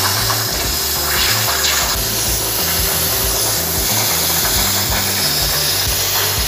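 Power tool running steadily with a continuous hiss, over background music with a stepping bass line.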